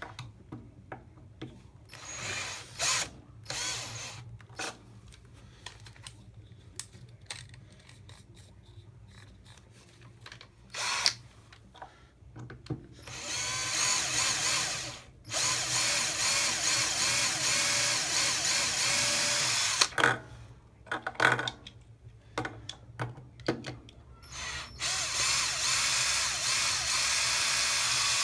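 Power drill with a small 1/16-inch bit drilling into the centre of the rivets that hold a Hot Wheels diecast car's base on. It runs in a few short bursts, then in three longer runs of a few seconds each, stopping and starting, with small handling clicks in the pauses.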